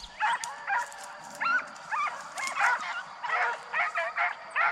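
A pack of deer hounds baying on a track: many short, overlapping yelps and bawls, several a second, some rising in pitch.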